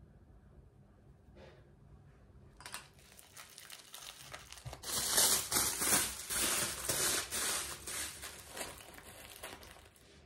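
Crinkling and rustling handling noise with many small crackles. It starts about two and a half seconds in, is loudest in the middle, and dies away near the end.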